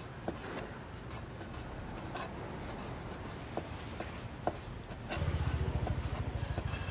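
A few light knocks and clicks over a steady background hum, then about five seconds in a low, rapid throbbing like a small engine running close by.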